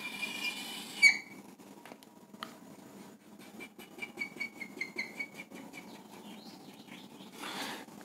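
Whiteboard marker squeaking across the board as a line is drawn: one longer squeaky stroke in the first second, then a quick run of short squeaky strokes, hatch marks along a curve, a few seconds in.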